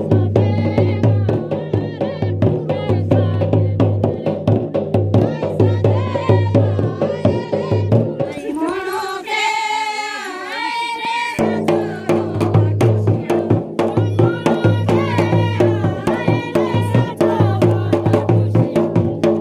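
Folk song sung by a group of women over a steady drum beat. About eight seconds in the drumming stops and one voice carries a wavering line alone for about three seconds, then the drums come back in.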